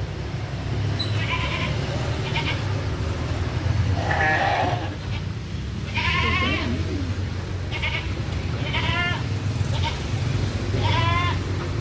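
Penned goats and sheep bleating, about eight quavering calls spaced a second or two apart, over a steady low hum.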